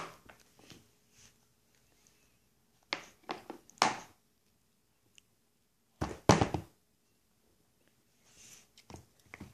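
Plastic baby bowl and spoon knocking against a high-chair tray: short clusters of thunks about three seconds in and again about six seconds in, with a few lighter taps near the end.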